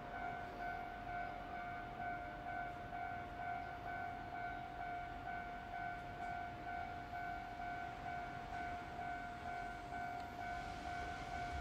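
Steady, high-pitched electric whine or buzz with a slight regular waver, over a low rumble in an electric train's cab.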